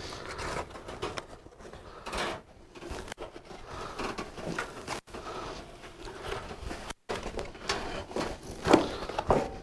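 Packaging being lifted out of a cardboard box by hand: irregular rustling and scraping, with a few brief knocks.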